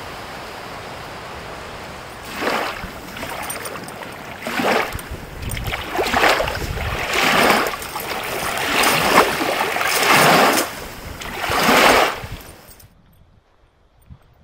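Small lake waves lapping and washing over a shallow shore: after a steady rushing hiss, about seven swells each rise and fall over a second or so, then the sound cuts off near the end.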